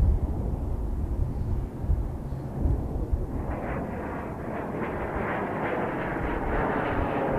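Four-engine jet air tanker, a BAe 146-type conversion, flying low past with its jet engines running in a steady whine. The whine comes in about halfway through and slowly grows louder, after a low rumble in the first few seconds.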